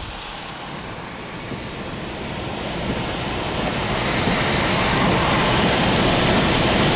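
Steady road noise inside a car driving on a wet highway in rain: tyres hissing on the wet surface with wind, growing louder and brighter about four seconds in.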